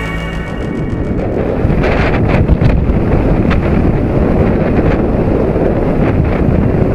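Wind buffeting the microphone of a camera riding on a scooter at road speed: a loud, rough rush with irregular gusts. Background music fades out in the first second.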